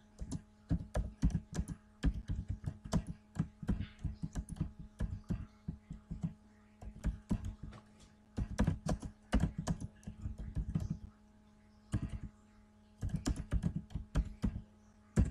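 Typing on a computer keyboard: irregular runs of keystroke clicks with short pauses between them, over a steady low hum.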